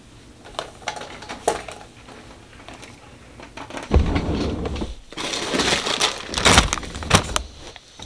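Rustling and crinkling close to the microphone as a baby is set down and handled on a padded changing surface, after a few light clicks in the first couple of seconds; the rustling comes in loud bursts over the second half.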